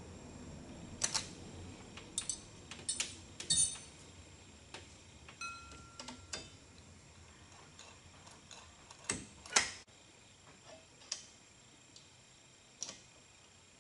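Irregular light metallic clicks and taps of a small wrench working the throttle linkage between twin Holley 750 carburetors, a dozen or so separate strokes, the loudest pair about nine seconds in.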